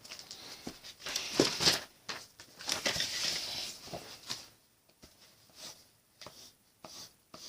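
Handwriting on paper: irregular short scratchy strokes, busy for the first few seconds, then sparser and fainter.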